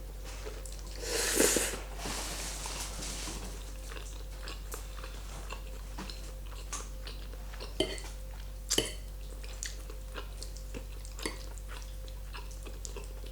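Close-miked eating of carbonara pasta: soft chewing and mouth noises, with one louder noisy mouth sound about a second in and a few sharper clicks near the middle, over a steady low electrical hum.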